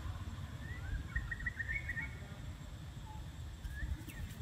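A quick run of short, high chirps about a second in, with a couple of single chirps later, over a low rumble of wind on the microphone.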